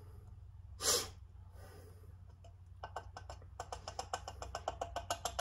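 Fork oil pouring from a measuring cup into an upright motorcycle fork tube. It runs as a fast string of small pitched plinks and gurgles during the last two and a half seconds. About a second in there is one short, sharp breath.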